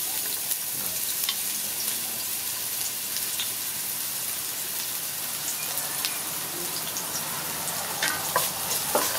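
Diced shallots frying in hot olive oil: a steady sizzling hiss with scattered crackles, and a wooden spatula stirring them around the pan, with a few sharper clicks near the end.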